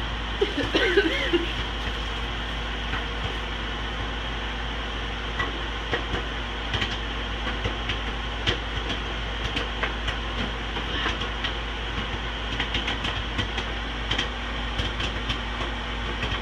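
Microwave oven running with a steady hum while popcorn pops inside, scattered sharp pops a second or so apart, coming more often near the end.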